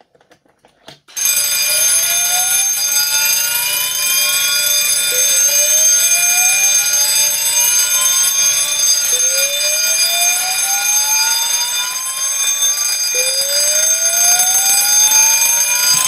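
Fire alarm sounders going off just after a manual call point is pushed: a steady, buzzy alarm tone together with a slow-whoop tone that rises in pitch over about four seconds and then starts again.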